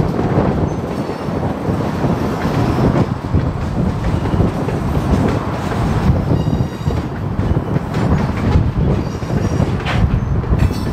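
Freight train's covered hopper cars rolling past, a steady rumble of steel wheels on rail with clattering over the joints. Faint high-pitched wheel squeal comes in briefly a little past the middle and again near the end.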